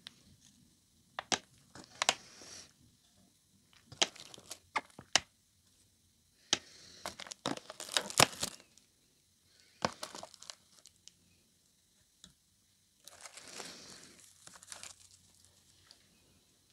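Thin clear plastic clamshell strawberry container crinkling and clicking as it is handled and strawberries are lifted out of it. The sound comes in irregular clusters of crackles with sharp clicks, separated by short quiet gaps.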